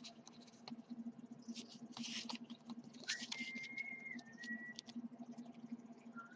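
Faint rustle and small clicks of trading cards being slid and shuffled through in the hand, over a faint steady hum. About three seconds in, a thin high tone is held for nearly two seconds.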